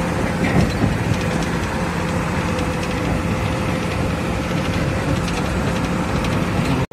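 A truck's diesel engine running steadily while the truck is driven, heard from inside the cab, with a steady engine hum under road noise.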